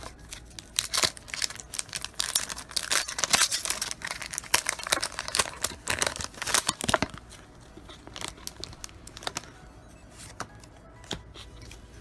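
Foil wrapper of a Pokémon TCG booster pack being torn open and crinkled: a dense crackling for several seconds, then sparser crackles near the end.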